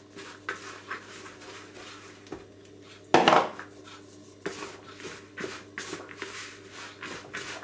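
Wooden spoon stirring flour into a dry, crumbly mixture in a plastic mixing bowl: short scrapes and knocks against the bowl, with one louder knock about three seconds in.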